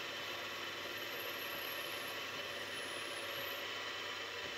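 Mini milling machine running steadily as a small No. 43 drill bit drills the pin hole through the crosshead: an even mechanical whir. A faint high whine wavers and dips in pitch about halfway through.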